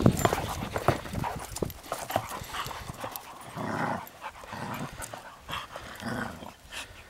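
Dogs panting as they play, with quick steps and scuffling on dry grass, densest in the first two seconds.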